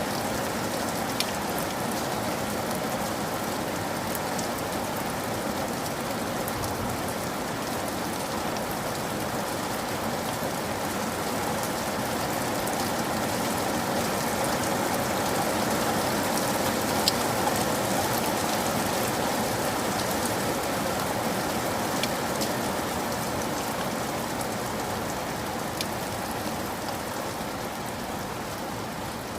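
Steady rain falling, with a dense even hiss and a few sharp drop ticks now and then.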